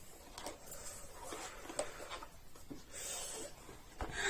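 Faint scattered clicks and light rustles of small objects being handled. A short hiss comes about three seconds in, and a louder rush of noise near the end.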